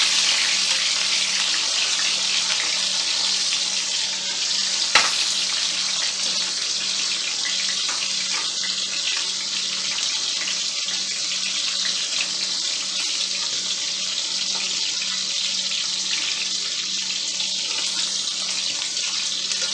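Pork chops frying in shallow oil in a stainless steel pan, with a steady hissing sizzle. There is a single sharp click about five seconds in, and a faint low hum underneath.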